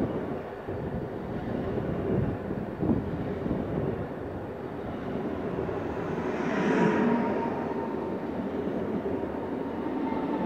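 PKP InterCity electric multiple unit passing close by: a steady rumble of wheels on the rails, with a hiss about six seconds in. A thin whine sets in over the second half, slowly falling in pitch.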